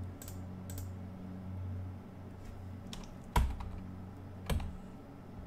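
Computer keyboard numpad keys pressed one at a time: a handful of separate clicks, with two louder key strikes in the second half, over a steady low hum.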